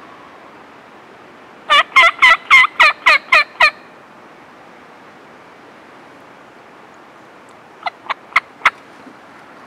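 Turkey yelping: a run of eight loud yelps at about four a second. Near the end come four short, sharp clucks.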